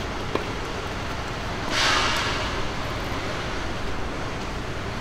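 Steady outdoor background noise with a low rumble. A single faint click comes just after the start, and a brief hissing swell about two seconds in.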